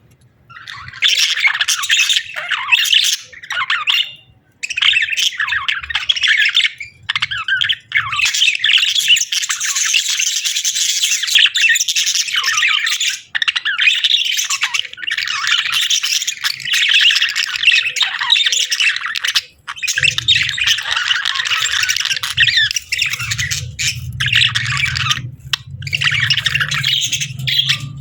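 Budgies chattering and warbling almost without pause, with sharp squawks and short breaks. A steady low hum joins in about two-thirds of the way through.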